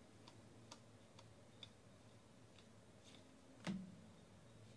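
Trading cards being flipped through by hand: faint, light clicks of card edges about once or twice a second, then one louder tap about three and a half seconds in.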